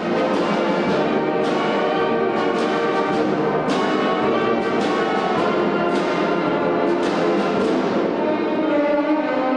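Wind band playing, brass and woodwinds together with percussion strokes, cutting in loud all at once.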